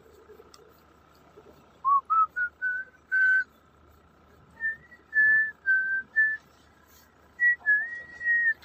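A person whistling a tune: a string of short clear notes stepping up and down in pitch, ending on one longer held note.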